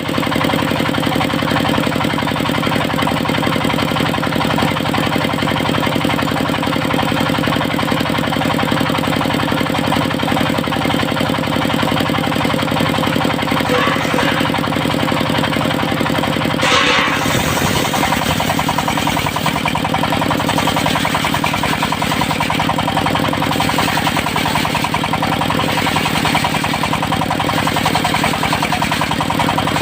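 Engine of a portable circular sawmill running steadily. About 17 seconds in there is a brief sharp noise, and the engine's note shifts after it.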